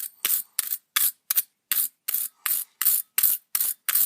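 Wire brush scrubbing a chainsaw spark plug in quick, even back-and-forth strokes, about three to four a second, to clear carbon and oil deposits off it.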